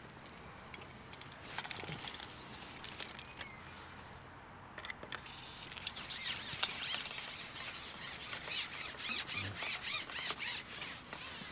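Carbon fishing pole being shipped out while plumbing the depth: its sections rub and squeak in quick repeated strokes, getting busier and louder in the second half.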